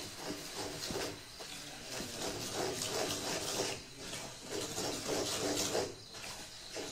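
Wooden spoon stirring sugar in a pan over the heat: repeated gritty scraping strokes of the spoon through the grainy, bubbling sugar.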